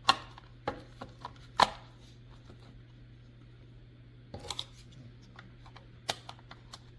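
Sharp plastic clicks and taps as a battery is fitted into a plastic camcorder's battery compartment and the camera is handled, over a low steady hum.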